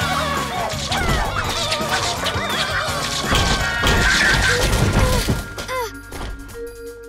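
Cartoon action music with layered sound effects, splats and crashes over the score, quietening about six seconds in to a single held note.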